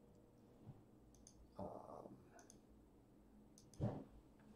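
Faint, scattered clicks of a computer mouse and keyboard, a handful of separate clicks over a quiet room, the loudest one about four seconds in.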